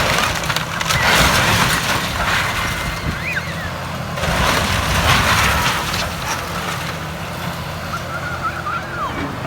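Heavy demolition machinery running with a steady low engine hum, with two louder surges of crunching, crashing noise about a second in and about halfway through, as the house is torn down, and a few short squeaks.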